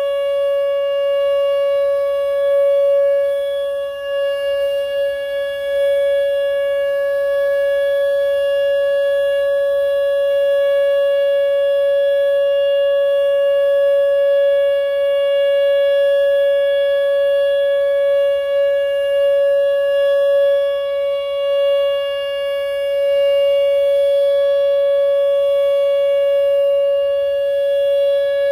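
Whelen WPS 2910 electronic outdoor warning siren sounding the steady alert signal of a monthly test: one held pitch with overtones, its loudness wavering slightly.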